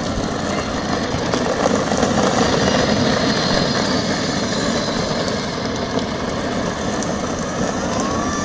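Modified Power Wheels ride-on toy driving on concrete, its hard plastic wheels rolling and its two Traxxas 775 electric motors, overvolted on 36 volts, running. It is a steady noise.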